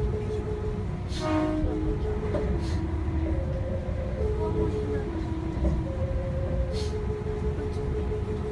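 Meitetsu 1200 series Panorama Super's musical horn playing its melody, its notes stepping back and forth between two pitches, over the low rumble of the train running, heard from inside the front cabin.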